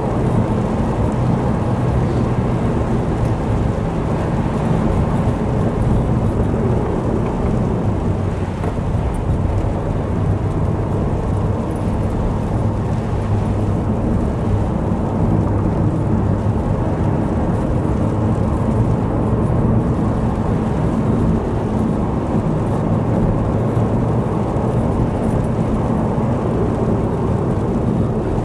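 Car driving on a wet road, heard from inside: a steady engine drone under a low rumble and hiss of tyres on wet tarmac.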